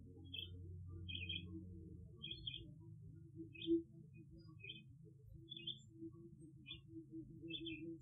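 Faint field recording of a bird giving short double chirps, about one a second, over a low steady hum. A brief louder low sound comes about halfway through.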